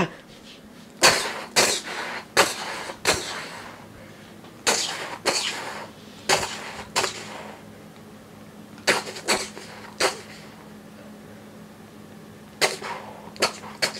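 Airsoft pistol firing about fourteen shots in clusters of two or three, each a sharp snap about half a second to a second apart, with short pauses between clusters.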